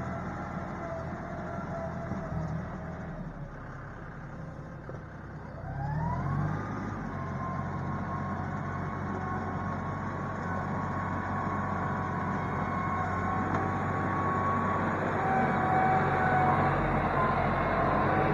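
John Deere utility tractor's diesel engine running under load. About six seconds in it revs up with a rising whine, then holds a steady higher pitch, growing louder near the end as the tractor comes closer.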